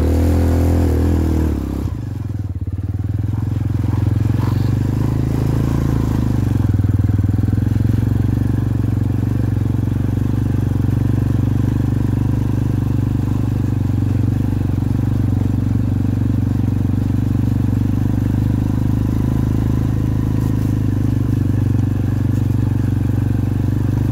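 Jinling 250cc ATV's single-cylinder four-stroke engine running under way on a dirt track. It revs a little higher for the first two seconds, drops back as the throttle eases, then runs steadily at low speed.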